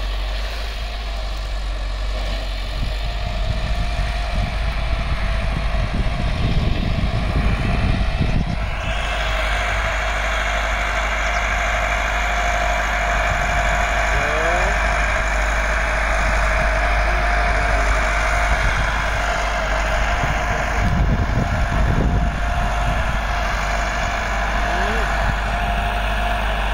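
Massey Ferguson 385 tractor's diesel engine running steadily under load, pulling an eleven-tine cultivator, with a steady high hum over the engine note. It grows louder about eight seconds in.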